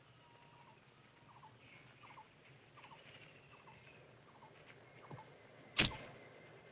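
Faint chirping of small birds, short calls every half-second or so, then one sharp snap about six seconds in.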